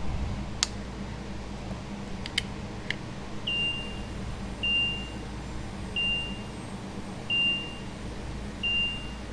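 Polaris Slingshot's dash warning chime beeping five times, one short high tone about every 1.3 seconds, as the ignition is switched on. A few sharp clicks come in the first three seconds before the beeping starts, over a low steady hum.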